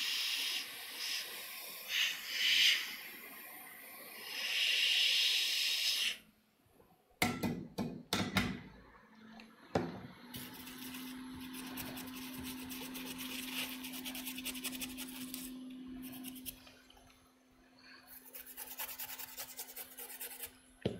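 Hot air station blowing a steady hiss onto the circuit board to soften leftover glue, cut off abruptly about six seconds in. A few clicks follow, then scratchy rubbing over a faint steady hum.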